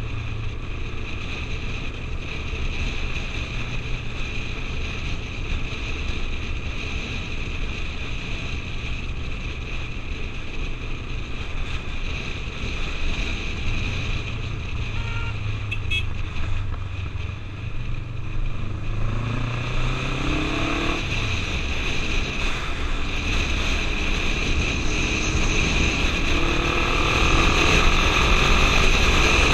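Motorcycle engine running at road speed, with wind rushing over a helmet-mounted microphone. About two-thirds of the way through the revs rise and then drop off at a gear change, and near the end the engine pulls harder and gets louder.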